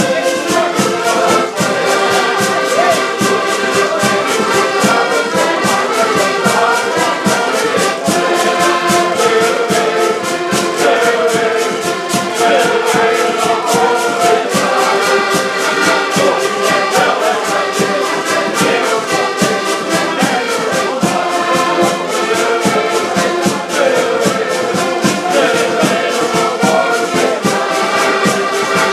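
A group of diatonic button accordions playing a folk tune together in unison, with full sustained chords and a steady, even beat.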